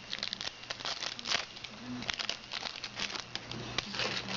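Trading-card pack wrapper crinkling and tearing in the hands as a pack is opened, a busy run of short crackles.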